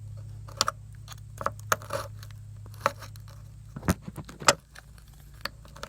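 Scattered metallic clinks and clicks of hand tools being handled against metal, over a steady low hum.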